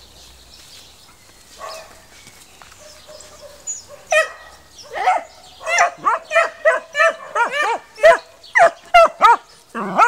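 Small dog barking rapidly and repeatedly in short, high-pitched barks, about three a second, starting about four seconds in.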